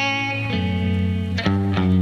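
Instrumental background music carried by guitar, with sustained chords that change about half a second in and again about a second and a half in.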